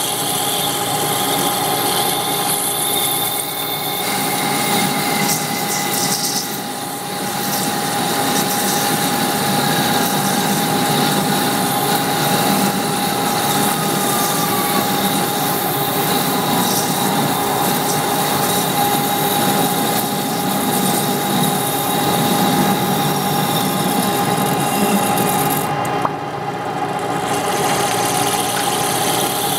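Metal lathe running steadily with a constant whine while turning a steel workpiece held in a four-jaw chuck.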